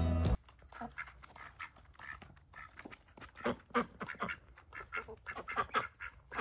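Ducks quacking in a run of short calls that come faster and louder from about halfway through. Background music cuts off suddenly right at the start.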